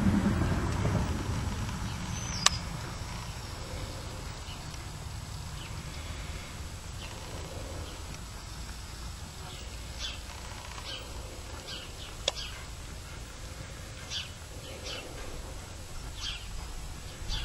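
Outdoor ambience with a bird chirping repeatedly in the second half, short high falling calls about once a second, over a low steady rumble. Two sharp clicks stand out, one early and one about two-thirds through.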